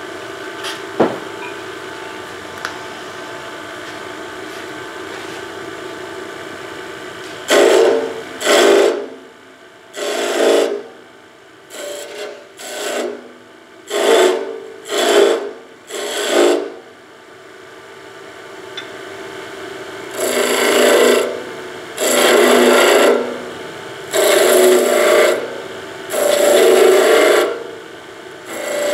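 Wood lathe running with a steady hum while a skew chisel cuts the spinning wood, shaping coves and beads. From about seven seconds in there is a run of short cutting passes, then after about twenty seconds a series of longer passes of about a second each.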